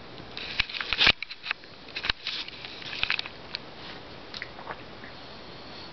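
Scattered sharp clicks and knocks of chess pieces being set down on a roll-up board over a wooden table and of a chess clock being pressed in a fast game. The loudest knocks come about one and two seconds in, with a quick cluster around three seconds, and they thin out toward the end.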